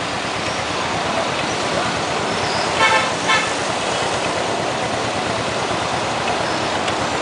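KYMCO motorbike engine running steadily, heard close to its exhaust muffler. Two short horn toots sound in quick succession about three seconds in.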